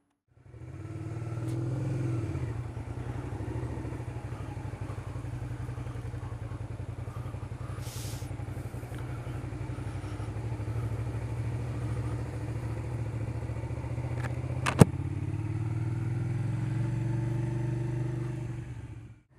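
Motorcycle engine running steadily under way, its note rising about two seconds in and again near the end. A single sharp click about fifteen seconds in is the loudest sound.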